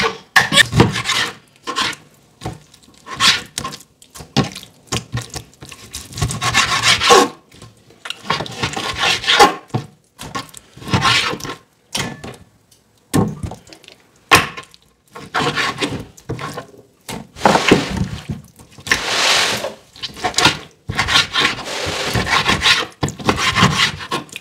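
Kitchen knife sawing through raw lamb on a plastic cutting board: irregular scraping strokes a second or two long, with short knocks in between.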